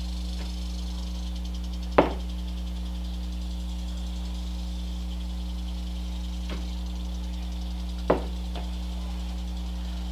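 Sharp knocks of parts or tools being handled while suspension linkage bearings are greased: a loud one about two seconds in, a faint tap around six and a half seconds, and another loud knock with a small follow-up near eight seconds. A steady low hum runs underneath.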